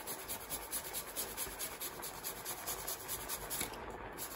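Fresh ginger root grated on a metal hand grater: quick, regular rasping strokes of the root across the blades.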